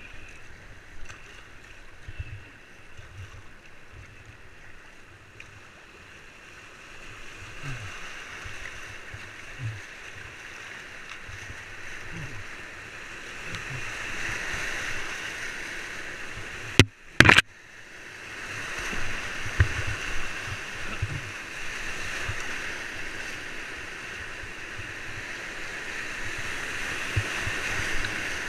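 White-water river rushing around a kayak, heard close from a camera mounted on the boat, getting louder as the kayak runs into rapids. Scattered low thumps, and a short, very loud burst about seventeen seconds in.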